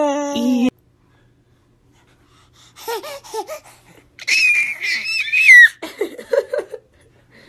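Babies laughing: a short giggle right at the start, then after a pause a baby's high-pitched gleeful squeal, the loudest sound, followed by a few short giggles.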